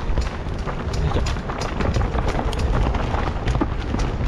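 Mountain bike rolling fast down a dirt forest trail: tyre and wind noise on the helmet camera with irregular rattling clicks and knocks from the bike, which the rider hears as something hitting the bike.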